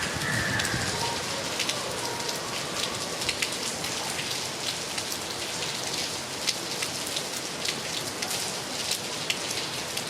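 Heavy rain falling steadily, with many sharp ticks of drops striking a hard surface close by.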